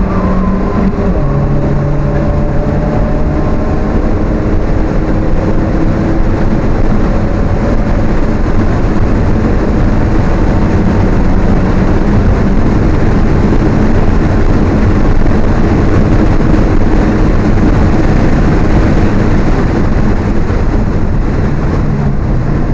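Onboard sound of an Alfa Romeo 1750's engine running hard on track, mostly a loud, steady rush of engine, wind and road noise. The engine's pitch falls slightly in the first few seconds.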